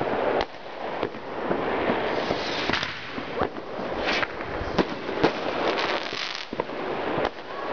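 Aerial fireworks bursting: a continuous crackle punctuated by many sharp bangs, several of them louder than the rest.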